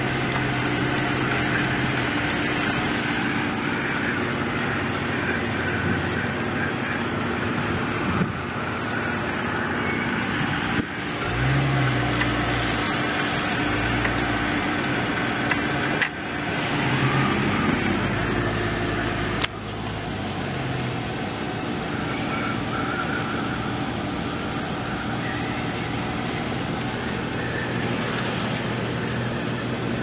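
Car engine and road noise heard from inside the cabin while driving: a steady hum whose pitch rises and falls several times in the middle as the car speeds up and slows, with a few sharp knocks.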